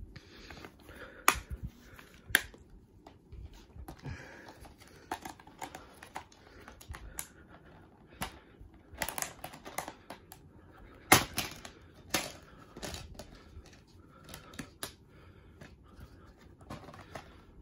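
Plastic Blu-ray and DVD cases being handled: irregular sharp clicks and snaps of the cases opening, shutting and knocking together, the loudest about a second in, near two and a half seconds and around eleven seconds, with light rustling of the fabric they lie on.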